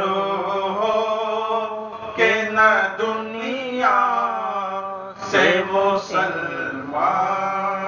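A man singing an Urdu naat unaccompanied through a microphone, drawing out long held notes that waver and bend in pitch, over a steady low hum.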